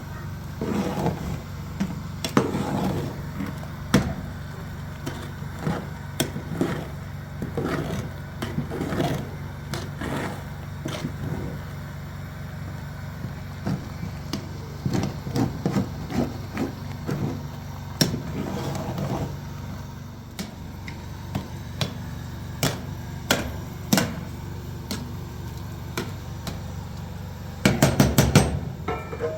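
Irregular knocks and taps, spaced unevenly, over a steady low hum, with a quick run of several loud strikes near the end.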